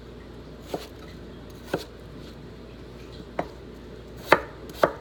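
Kitchen knife chopping vegetables on a cutting board: five separate, unhurried strokes at uneven gaps, the last two louder.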